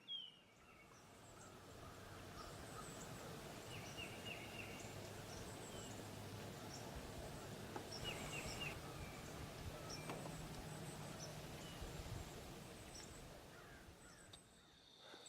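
Faint outdoor ambience with scattered short bird chirps, several in small clusters, over a faint low drone in the background.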